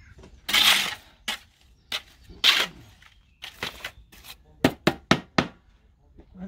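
A small trowel scraping through lime mortar in a galvanised metal dustbin and knocking against it: two longer scrapes in the first few seconds, then a quick run of sharp knocks near the end.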